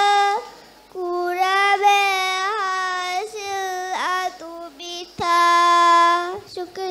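A girl chanting raivaru, the traditional Maldivian sung verse, solo into a microphone: long held notes with slight wavers, in phrases broken by short pauses.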